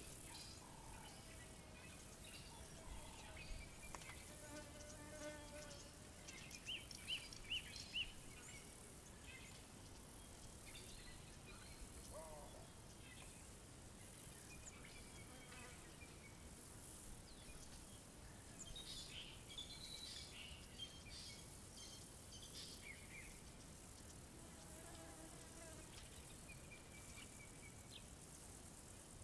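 Quiet savanna ambience: scattered bird calls, including a run of four sharp chirps about seven seconds in and a short rising note a few seconds later, over faint insect buzzing.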